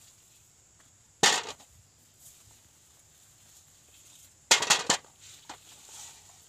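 A wooden digging stick chopping into soil while digging up sweet potatoes. There is one sharp crunching strike about a second in, then a quick run of several strokes about three seconds later.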